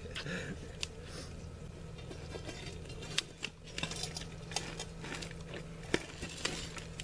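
Steel pry bar clinking and scraping against concrete at irregular moments as it is worked into a saw cut to lever up a cut slab section, over a faint low steady hum.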